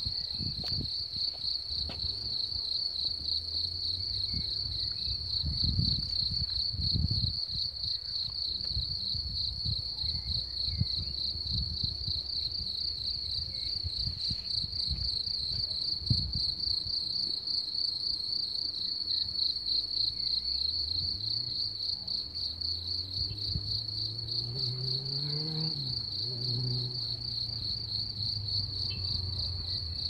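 Crickets singing in the grass: one steady, high, finely pulsing trill that never breaks. Under it there is low rumbling in the first third, and a low hum that slowly rises in pitch over the second half.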